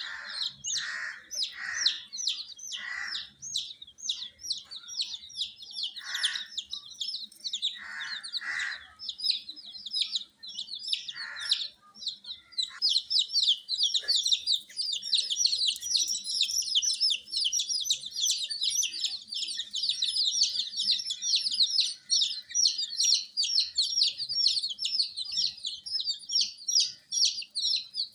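A group of baby chicks peeping continuously in rapid, high-pitched chirps. A few lower, shorter calls break in during the first half, and about halfway through the peeping becomes denser and louder.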